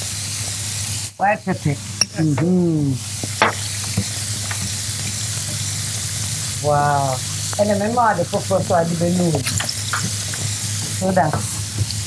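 Food frying with a steady sizzle as it is stirred with a wooden spoon, with a few sharp knocks of the spoon against the pan. Voices come in at times over the sizzle.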